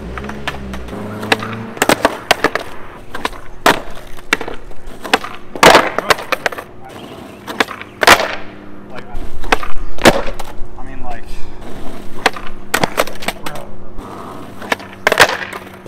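Skateboard rolling on rough asphalt with many sharp clacks of the board popping, flipping and slapping down as a nollie varial kickflip is attempted over and over.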